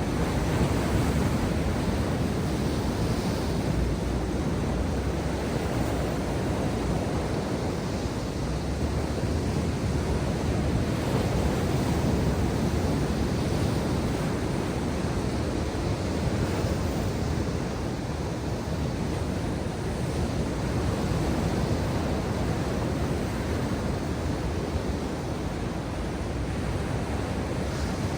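Ocean waves breaking and washing ashore in a continuous surf, the level swelling gently and easing every few seconds, with wind on the microphone.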